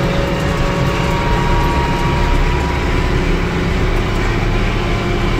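International Harvester tractor's engine running steadily as the tractor drives across the field, heard from the driver's seat.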